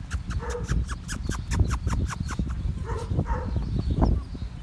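Akita puppies close up: a quick run of sharp clicks and scratches, with two short pitched yips or whimpers about half a second and three seconds in, over a steady low rumble.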